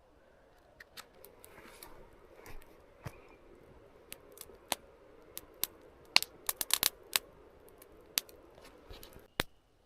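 Faint, irregular sharp clicks and crackles, coming thicker for a moment about six seconds in.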